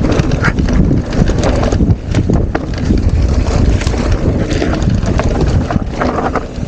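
Mountain bike clattering and rattling over big loose rocks on a rough descent, with a dense run of irregular knocks and jolts. Wind rushes over the microphone throughout.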